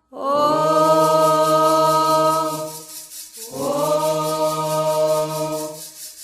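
Chanting of a Candomblé ponto for Xangô: two long held sung notes of about two and a half seconds each, each sliding up in pitch at its start.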